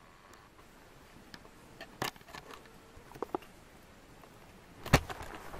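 Faint background hiss broken by a few scattered clicks and knocks, then one loud sharp knock near the end: handling noise and footsteps from the person filming as the camera is moved.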